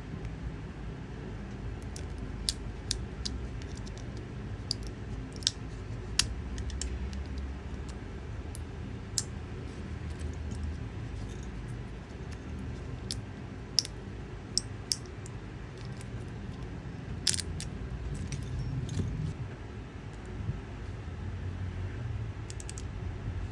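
3D-printed clicker keycap being clicked: sharp, irregularly spaced clicks, some in quick pairs, over a steady low hum.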